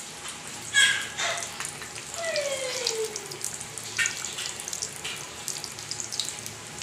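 Besan-battered pieces deep-frying in hot oil in a steel kadhai: a steady sizzle full of small crackles. A brief loud sound comes just under a second in, and a short sound falling in pitch follows a little later.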